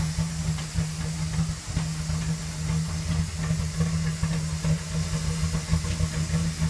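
Ford Crown Victoria P71's 4.6-litre V8 idling rough at the tailpipe after an engine rinse, with a steady hiss over the low exhaust note.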